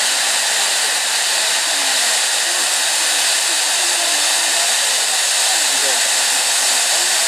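Two hand-held tube fireworks (tezutsu hanabi) spraying fountains of sparks: a loud, steady rushing hiss.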